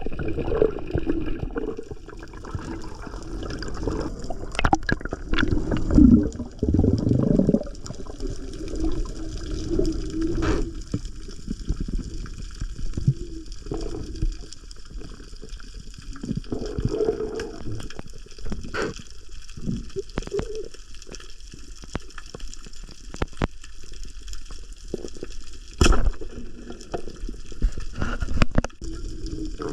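Water gurgling and sloshing, with scattered sharp clicks and knocks.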